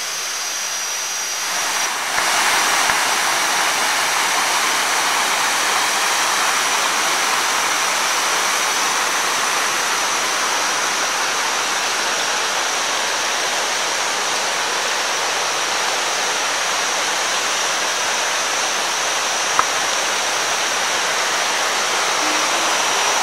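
Rushing water of a waterfall over rocks: a steady, dense hiss that grows louder about two seconds in. A thin high steady tone runs above it.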